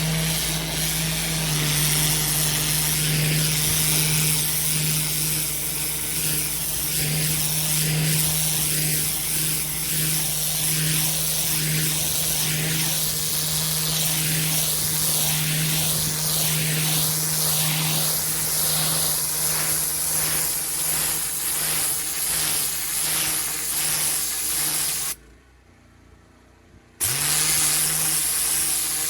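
Pressure washer running steadily with the hiss of high-pressure water spraying onto block paving. The sound cuts out abruptly for about two seconds near the end, then comes back.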